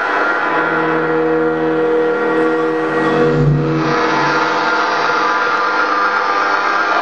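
Amplified electromagnetic interference from a laptop, picked up by a small cabled electromagnetic pickup held against its screen: a dense electronic drone of many steady buzzing tones, with a deep hum swelling about three and a half seconds in.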